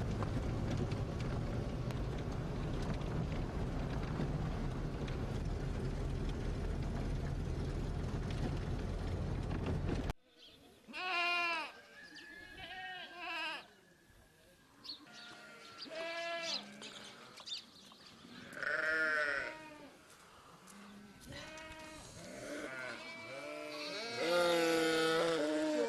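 Steady low rumble of a moving vehicle heard from inside it, cut off abruptly about ten seconds in. Then a flock of sheep bleating in a pen, many separate calls, loudest near the end.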